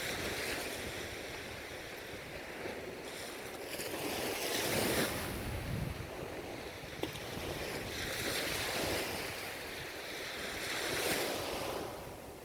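Ocean waves breaking and washing up the shore, the surf swelling and falling back about four times, with wind buffeting the microphone.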